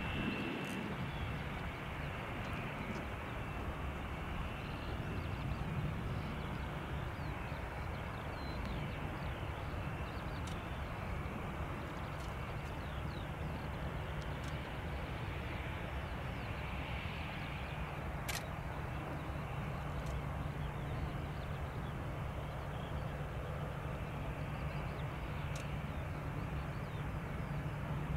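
Boeing 737 taxiing with its twin turbofan engines at idle: a steady rushing hum, with a low drone that grows stronger in the last third.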